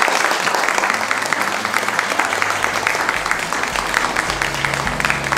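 A large crowd applauding, dense and steady clapping. About halfway through, music with steady bass notes comes in under it.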